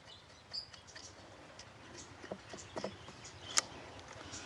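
Chainsaw side-cover nuts being loosened with a plug spanner: scattered light metallic clicks and taps of tool and parts handling, with a sharper click about three and a half seconds in.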